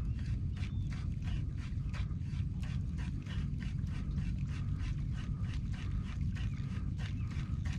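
Kayak under way while trolling: a quick, even rhythm of soft strokes, about four a second, over a steady low rumble of wind and water on the microphone.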